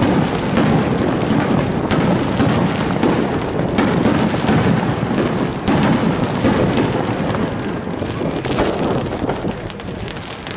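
Aerial firework shells bursting in a rapid, continuous barrage, the bangs following one another closely and overlapping, easing off slightly near the end.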